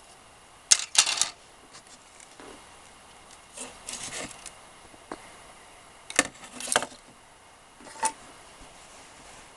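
Handling noises: sharp clicks and short rattling scrapes of hard objects being picked up and moved, in clusters about a second in, around four seconds, at six to seven seconds, and once more near eight seconds.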